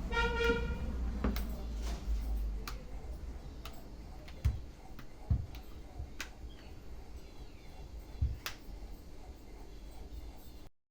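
Scattered light clicks and taps of small parts being handled and fitted during reassembly of a smartphone, about seven in all, over a low hum. A short pitched tone sounds right at the start, and everything cuts off near the end.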